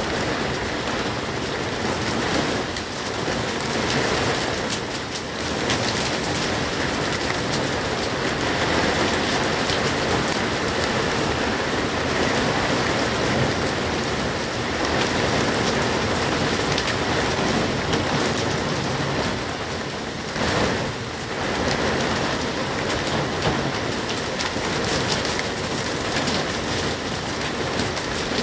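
Heavy downpour: a dense, steady hiss of rain pouring down and hitting the roof sheeting close by.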